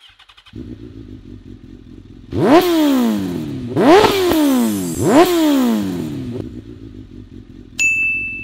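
Sport motorcycle engine idling and blipped three times, each rev climbing sharply and falling back to idle. A short high ping with a click sounds near the end.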